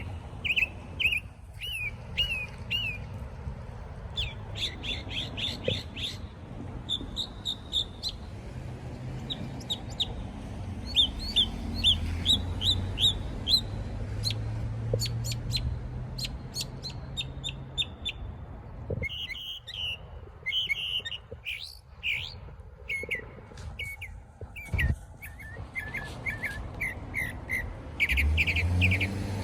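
A small songbird singing: quick runs of high, repeated chirps and short trills, in bursts with brief pauses between them.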